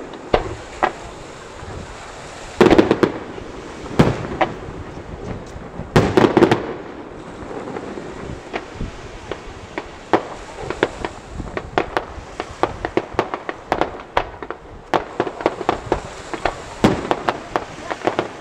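Aerial firework display: three heavy shell bursts bang in the first seven seconds, then a long run of rapid, sharp crackling pops.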